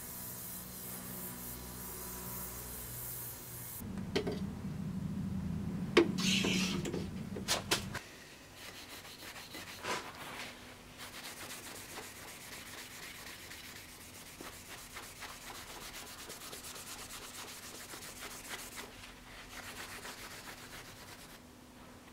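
An oxy-acetylene torch hissing steadily as it heats a forged steel knife blade, cut off about four seconds in. A few seconds of clatter with several sharp knocks follow. After that comes a long spell of steady back-and-forth rubbing as the steel blade is worked by hand on a cloth.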